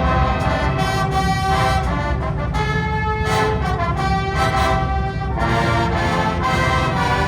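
Winds ensemble of brass and woodwinds playing sustained chords, the harmony shifting every second or so.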